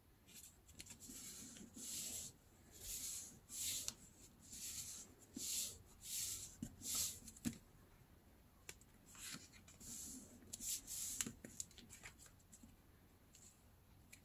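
Fingers rubbing and pressing newspaper flat on a table: about a dozen short, soft paper swishes with a few small taps, easing off near the end.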